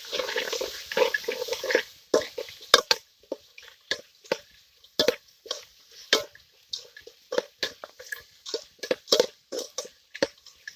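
Ladle stirring and crushing tomatoes and onions frying in a pan: a dense sizzle for about the first two seconds, then irregular wet squelches and scrapes.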